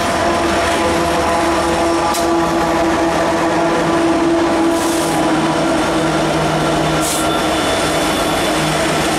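Ferromex diesel-electric freight locomotives passing at close range: a loud, steady engine drone with several held tones. Two short hisses come through, about two and seven seconds in.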